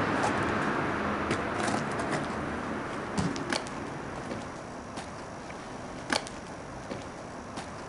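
Outdoor background noise that slowly fades, with a few scattered light clicks and knocks, the sharpest about six seconds in.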